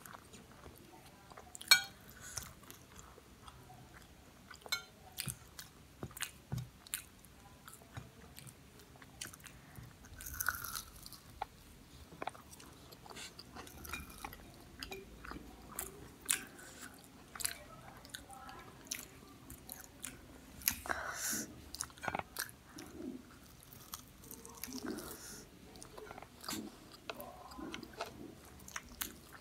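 Close-miked chewing and crunching of fried samosas: the crisp pastry crackles in irregular bites and chews, with a sharp crunch about two seconds in.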